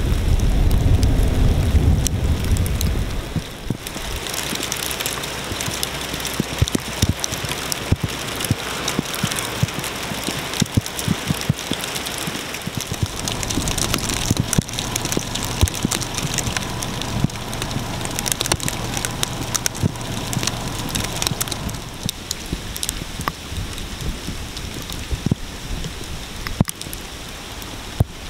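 Heavy sleet falling: ice pellets hitting snow and pavement make a steady fine hiss with many small ticks. A low rumble fills the first few seconds, then stops.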